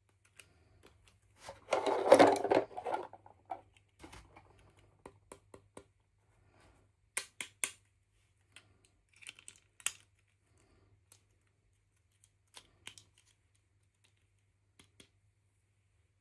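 Small plastic toy parts and packaging being handled: a burst of rustling about two seconds in, then scattered light clicks and taps.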